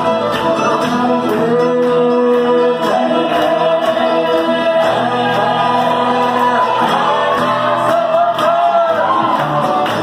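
Old-time string band playing a fiddle tune live: several fiddles carry the melody together over strummed guitar, loud and steady.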